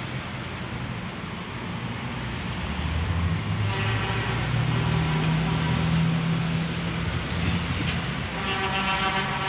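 Steady low rumble and hum of outdoor city background noise, with a faint steady drone coming in about four seconds in and again near the end.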